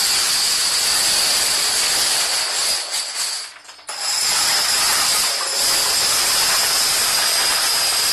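Thousands of small plastic dominoes toppling in a chain reaction: a dense, continuous clatter. It drops off briefly about three and a half seconds in, then starts again as a second section falls.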